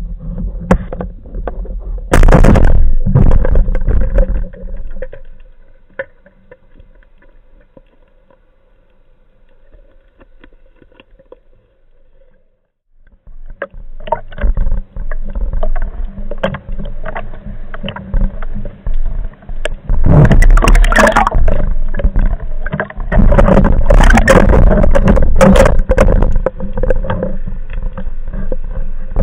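Underwater sound picked up by a camera mounted on a speargun. About two seconds in there is a sharp crack as the speargun fires, followed by a few seconds of rough noise. After a quieter stretch, dense rushing water noise with many knocks and bumps sets in from about fourteen seconds on, as the gun and its loose band are moved about near the surface.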